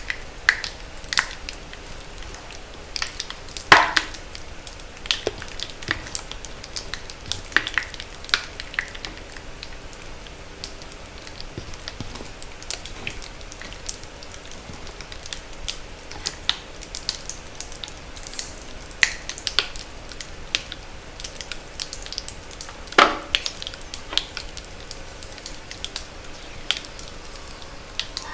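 Reformed magnesium carbonate gym chalk being crushed, crackling and popping in scattered sharp snaps, with two louder pops, one about four seconds in and one near the end.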